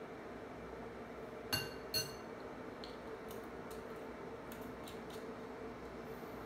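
Two light glass clinks about half a second apart, each ringing briefly, as a small glass bottle is handled, followed by a few faint clicks as its screw cap is twisted, over a steady low hum.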